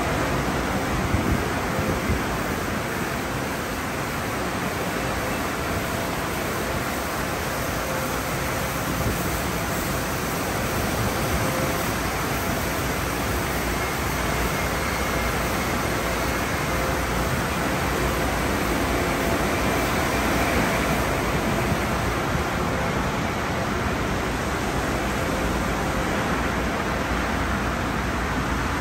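Steady, even rush of a running conveyor car wash tunnel: water spraying from the arches and cloth wash brushes spinning on the cars. A faint steady hum sits under it.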